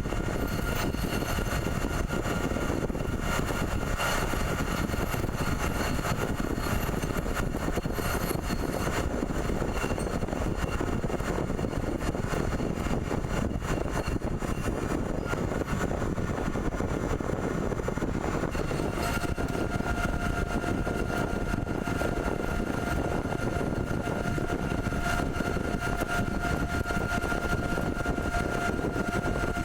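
CNC pipe threading machine running steadily, a dense mechanical noise; about two-thirds of the way in a steady whine with a higher overtone joins it.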